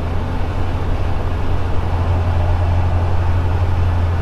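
FK9 Mark IV ultralight aircraft's engine and propeller droning steadily in level cruise flight, heard inside the cockpit as an unbroken low hum.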